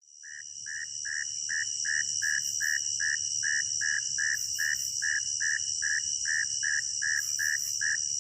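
Night chorus of insects: a steady high-pitched buzz with a pulsing chirp repeating about two and a half times a second. It fades in at the start.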